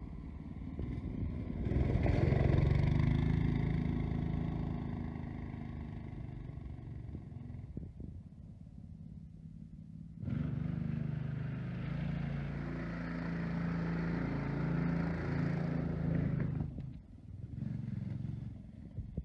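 Small single-cylinder Predator 212 gas engine of a ride-on kart running, growing louder about two seconds in and then fading away. It comes back suddenly about ten seconds in, running steadily, and cuts off abruptly near the end.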